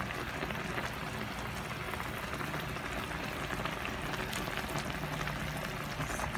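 Sinigang sa miso, a sour miso broth with tanigue fish, boiling in a pan: a steady bubbling.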